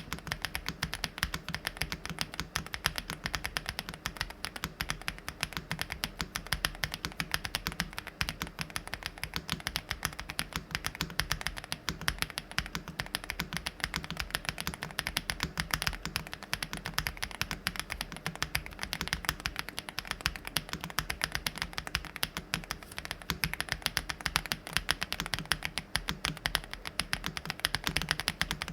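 Typing on a Meletrix Zoom75 custom mechanical keyboard: fast, continuous keystrokes with a dense run of clicks and clacks and no pauses.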